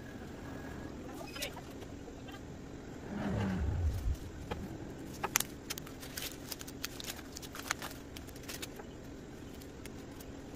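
Adhesive stencil being peeled and picked off a painted wooden cornhole board, giving scattered light crackles and clicks through the middle of the stretch. A brief low rumble comes about three seconds in, over a faint steady hum.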